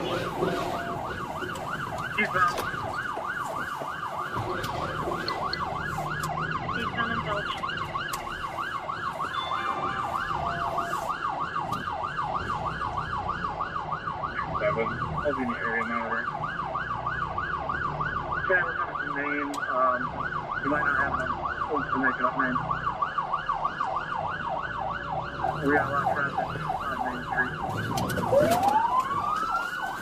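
Police car siren in a fast yelp, its pitch sweeping up and down several times a second. Near the end it changes to a slow rising wail.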